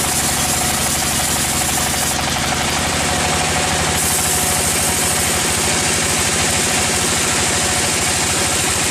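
Band sawmill running: its engine hums steadily with a rapid, even pulse while the blade saws through a log.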